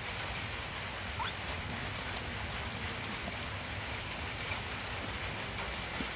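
Steady patter of rain, an even hiss with scattered faint ticks, and one short faint rising chirp about a second in.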